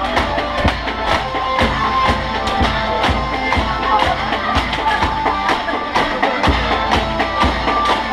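Background music: a song with a steady drum beat.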